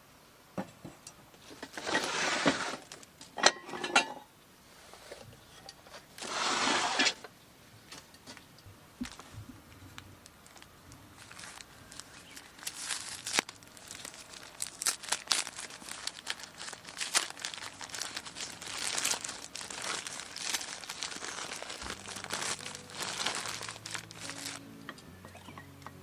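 Crinkling and rustling of handled material: three short loud bursts in the first seven seconds, then a long stretch of dense, crackly rustling. Soft music comes in near the end.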